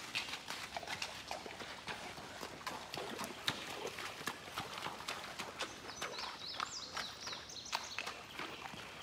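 A horse moving in a shallow creek with a stony bed: irregular knocks of its hooves on the stones, mixed with small splashes.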